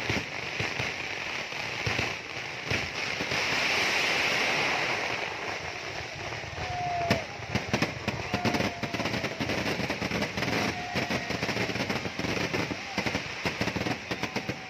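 Fireworks display: a dense crackling hiss of bursting shells, then from about seven seconds in a rapid, irregular run of sharp bangs.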